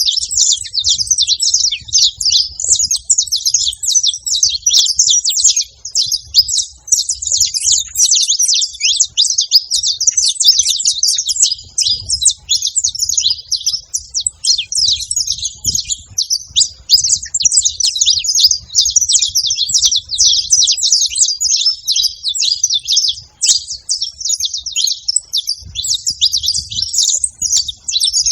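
Saffron finches chirping in a dense, continuous stream of rapid high notes that overlap one another without a break.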